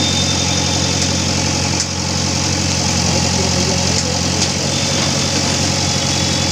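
Diesel engine of a JCB backhoe loader running steadily at a low, even speed, with a couple of faint knocks.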